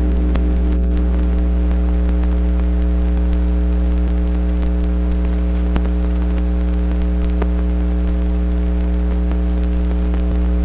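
Steady electrical hum with several overtones and scattered faint clicks and pops: the soundtrack noise of a 16mm film print, with the music gone.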